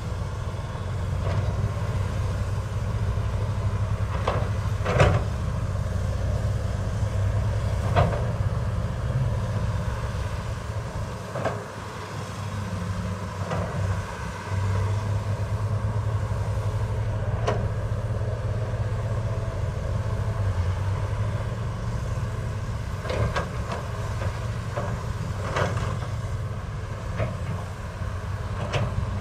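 Heavy construction machinery running: a steady low engine hum, easing briefly about halfway through, with occasional sharp metal clanks.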